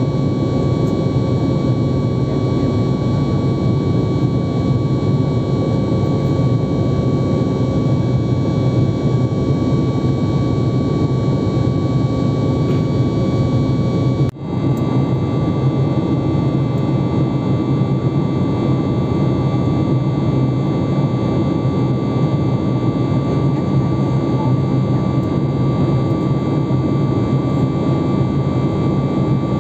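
Jet airliner cabin noise: a steady rumble of engines and airflow with a thin steady whine over it. It drops out for a moment about halfway through.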